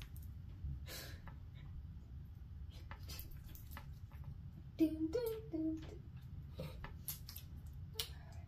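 Soft scattered rustles and taps of hands working icing piping bags and plastic candy packets over a steady low room hum, with a short hummed vocal sound from a person about five seconds in.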